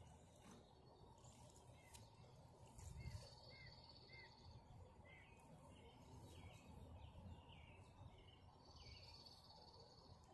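Faint outdoor background of small songbirds: scattered short chirps and two high, even trills, one about three seconds in and one near the end, over a low steady noise. A soft low thud comes about three seconds in.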